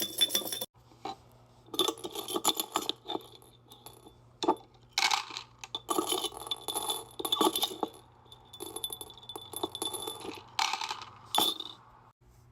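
Small hard items clinking and rattling together in several bursts, with short pauses between them, as they are scooped.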